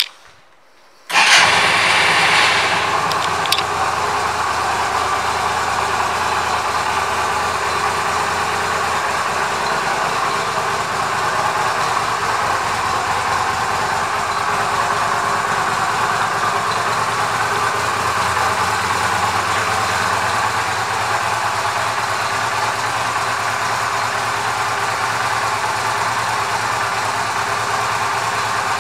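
2008 Yamaha V Star 250's air-cooled V-twin starting about a second in, loudest for its first second or so, then idling steadily.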